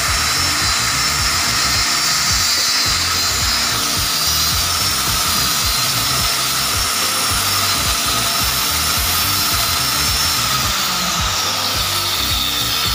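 Handheld electric cutter with a diamond blade cutting a groove along the laminated edge of a plywood cabinet door: a steady motor whine with the rasp of the blade in the board. The whine falls in pitch near the end.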